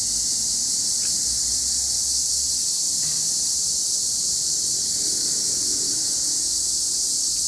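A steady, high-pitched chorus of insects singing in the trees, an unbroken loud hiss.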